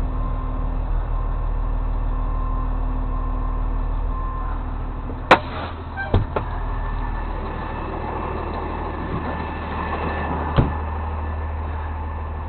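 Truck engine running steadily. Several sharp metallic knocks sound over it: one loud knock about five seconds in, two more a second later, and another near the end.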